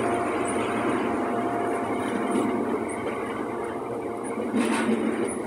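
Freight train's biomass hopper wagons rolling past close by: a steady rumble and rattle of steel wheels on the rails, easing slightly, with a brief louder clatter about four and a half seconds in.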